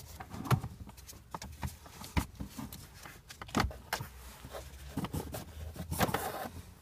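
Irregular plastic clicks, taps and scraping as a cabin air filter cassette is slid out of its housing behind a car's glovebox.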